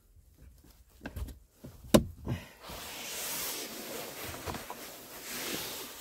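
Plastic clicks and knocks from the Kia K8's glove box and its dial-type side lock being refitted, with one sharp click about two seconds in, followed by steady rustling handling noise.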